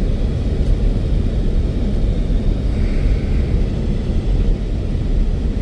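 Low, gusting rumble of strong blizzard wind buffeting a moving work van, mixed with the van's engine and road noise.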